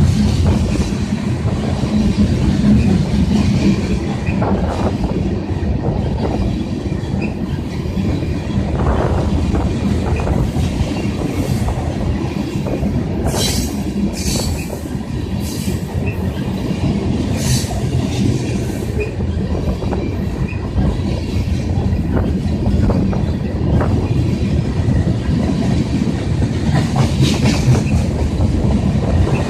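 Ethanol freight train rolling steadily past, its railcar wheels clattering over the rails, with heavy wind buffeting the microphone. A run of sharp metallic clatters comes about halfway through and again near the end.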